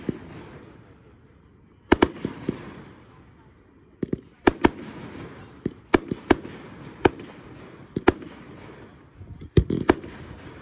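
Aerial fireworks shells bursting in quick succession: about a dozen sharp bangs, some in close clusters, each trailing off into a rumbling echo.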